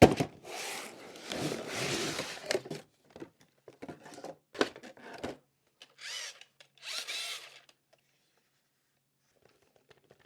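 Unboxing handling noise: packaging rustled and torn open in bursts, with scattered clicks and knocks, then quiet for the last couple of seconds.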